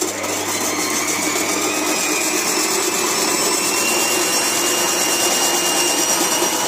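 Silvercrest SKM550B1 food processor starting up and running steadily with a high motor whine, its fine shredding disc shredding celery pushed down the feed tube.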